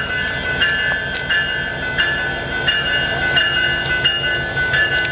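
A bell ringing steadily, about three strikes every two seconds, over the low rumble of a slowly departing diesel freight-style train.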